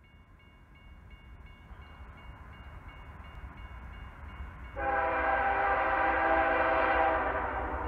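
Approaching diesel freight locomotive leading a loaded grain train: a low rumble grows steadily louder, and about five seconds in its air horn sounds a loud chord that eases off after about two seconds. A faint, evenly repeating ringing is heard throughout.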